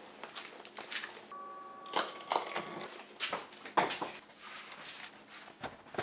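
Scattered knocks, clicks and rustles of things being handled and loaded into an SUV's cargo area. About a second in, a steady electronic beep sounds for about a second and a half.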